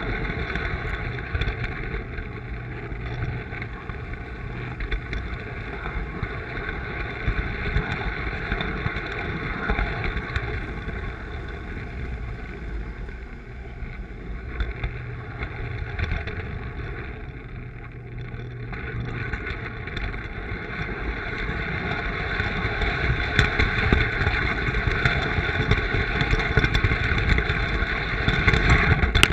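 Lionel electric toy trains running on three-rail O-gauge track: a steady motor whir with rapid clicking and clattering of wheels over the rails. It grows louder over the last several seconds and then cuts off abruptly.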